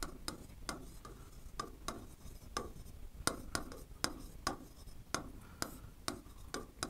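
Pen writing on a board: irregular short taps and light scratches of the tip, about two or three a second, as Devanagari letters are written.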